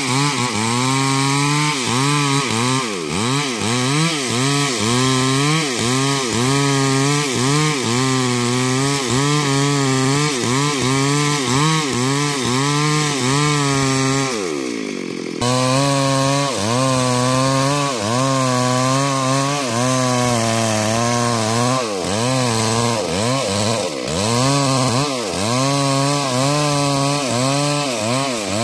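Stihl MS 382 two-stroke chainsaw cutting into a mahogany trunk at full throttle, its engine note dipping and recovering about once a second as the chain bites and clears. About halfway the note drops and breaks off abruptly, then the saw is cutting again at full throttle.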